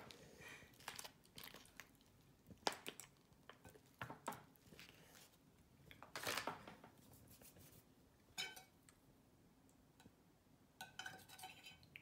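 Faint, scattered handling noises: an MRE foil pouch crinkling as it is squeezed and put down, with a longer rustle about six seconds in, and light clicks of a spoon on a ceramic plate.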